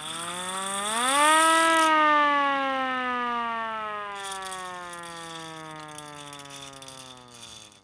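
Handheld hand-crank air-raid siren giving a short growl: its wail rises quickly to a loud peak about a second and a half in, then slowly falls in pitch as the rotor winds down, and stops near the end. A mechanical rattle from the cranking runs under it.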